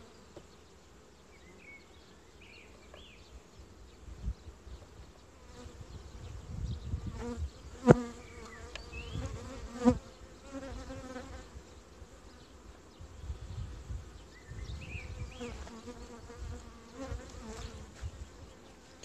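Honeybees buzzing around an open hive, a steady hum. Two sharp knocks stand out, about eight seconds in and again two seconds later.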